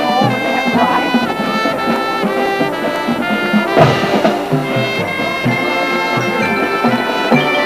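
Drum and bugle corps playing: a brass section of bugles holding and changing chords over a regular low drum pulse, with one loud accented hit about four seconds in.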